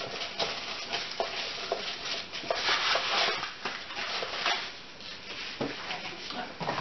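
Hands rummaging through loose packing chips in a box, a continuous rustle broken by many small clicks and taps as chips are picked out and set down.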